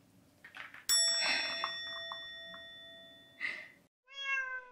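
A bright bell chime is struck once about a second in and rings out, fading slowly over nearly three seconds. Near the end comes a short tone that wavers in pitch.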